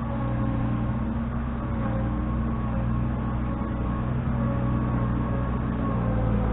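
An engine running steadily, getting slightly louder near the end.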